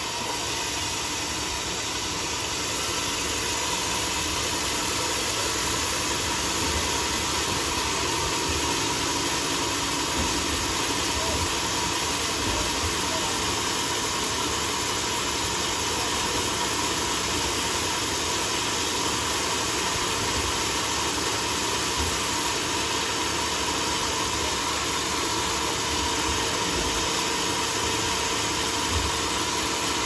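A homemade band sawmill running steadily, a constant machine noise with a faint steady whine.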